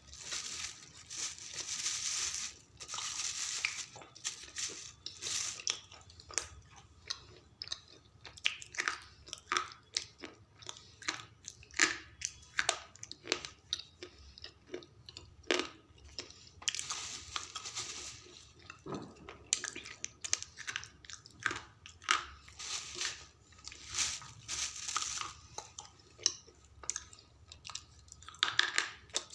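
Slate pencils being bitten and chewed: an irregular run of sharp crunches and snaps.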